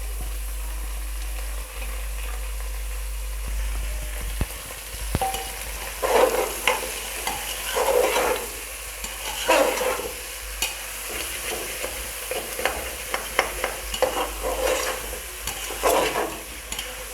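Goat trotters frying in hot oil with onion and ginger-garlic paste in a pressure cooker, sizzling steadily. From about six seconds in, a spoon scrapes and stirs them in strokes every second or two.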